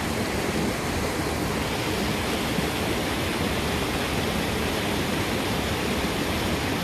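Steady rush of a forest stream's running water.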